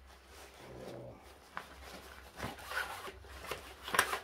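Rustling and small clicks of a folded camping table being packed into its fabric carry bag, with one sharp click near the end.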